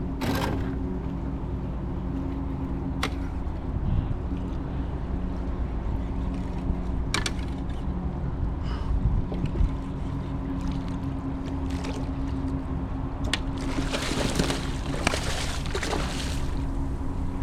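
Water lapping and sloshing around a fishing kayak under a steady low mechanical hum, with a few sharp clicks spread through it and a stretch of splashing about two-thirds of the way in.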